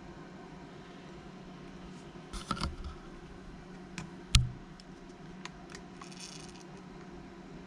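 Small clicks and taps of gold chrome-plated RC car parts being handled, with one sharp knock about four and a half seconds in, over a steady low hum.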